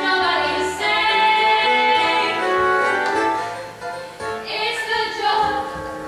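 Young female voices singing a musical-theatre song over backing music, in long held notes with a short break about four seconds in.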